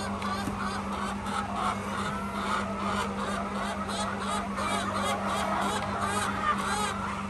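A flock of laying hens calling, with many overlapping squawks and clucks, over a steady low hum.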